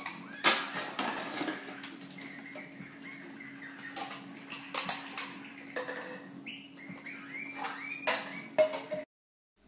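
A parrot giving short, high chirps among sharp clicks and taps, with a steady low hum underneath; it all cuts off suddenly near the end.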